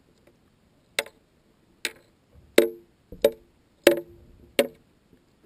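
A series of six sharp clicks, about one every 0.7 seconds, picked up underwater through a camera's dive housing.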